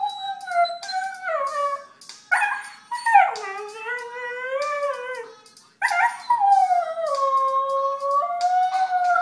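Husky howling along to a pop song in three long howls that waver and slide up and down in pitch, with short breaks between them; the music plays faintly underneath.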